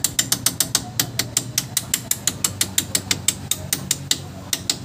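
Hand ratchet wrench clicking rapidly as it is worked back and forth to turn a bolt at the strut-to-knuckle joint of the front suspension. It makes about six or seven clicks a second, with a brief pause near the end.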